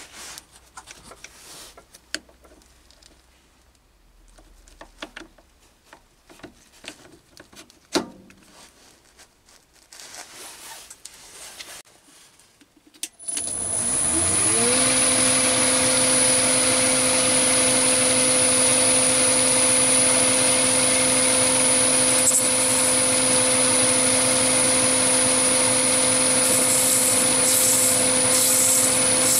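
Metal clicks and knocks as a tool holder is fitted to a quick-change toolpost on a Chinese mini lathe. About 13 s in, the lathe's motor starts, rises in pitch over a second or two, and settles into a steady running hum with a high whine, the chuck spinning a brass workpiece.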